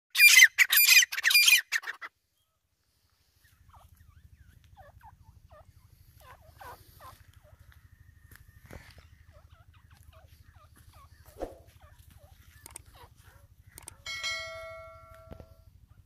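Grey francolin calling loudly: a run of rapid, harsh notes in three quick bursts over the first two seconds, followed by a few faint, soft call notes and clicks. About fourteen seconds in, a ringing chime fades out over about a second.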